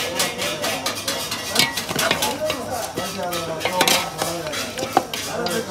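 A metal ladle scraping and clinking against a large metal pot as chunks of lamb on the bone are stirred in hot fat, with many sharp knocks and scrapes throughout.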